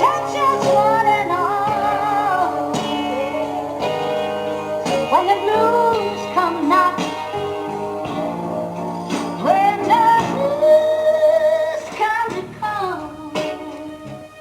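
A song with a woman singing over guitar accompaniment, in a country style.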